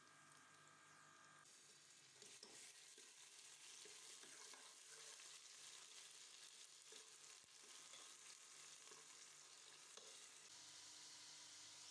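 Sliced onions frying in oil in a metal pot: a faint sizzle that grows stronger about a second and a half in, with a steel spoon stirring and scraping against the pot.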